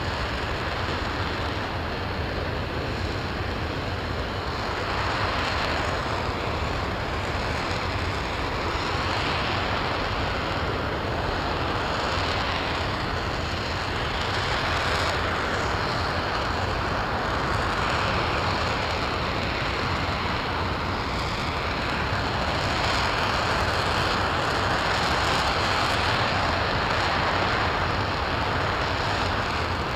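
RS-25 liquid-hydrogen/liquid-oxygen rocket engine firing steadily in mid-burn during a hot-fire test. It makes a continuous deep rushing noise that slowly swells and eases.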